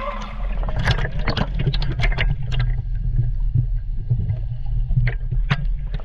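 Lake water sloshing and splashing around a camera held at the surface, a steady low rumble with irregular sharp splashes as fish crowd at the surface for food.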